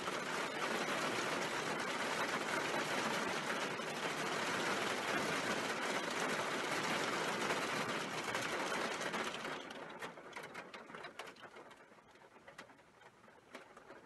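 Heavy hailstorm: a dense, continuous rattle of hail and rain hitting hard surfaces. About ten seconds in it thins out quickly to scattered single hailstone ticks.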